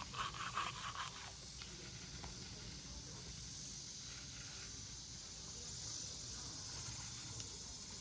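Faint, steady outdoor ambience: an even high-pitched hiss with no distinct events.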